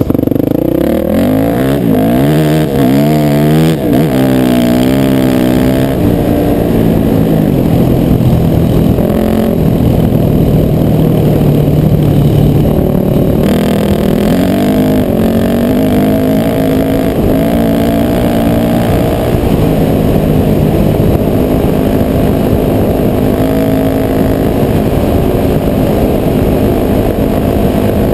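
Honda CR500 single-cylinder two-stroke dirt bike engine, revved up and down in quick blips for the first few seconds, then running on at steadier speeds with its pitch shifting in steps.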